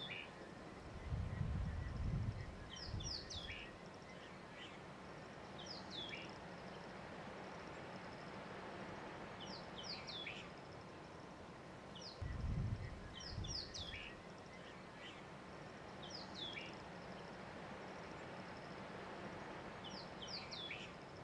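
A songbird repeating short phrases of quick, falling chirps every few seconds over a steady background hiss. A low rumble comes up twice, about a second in and again around halfway.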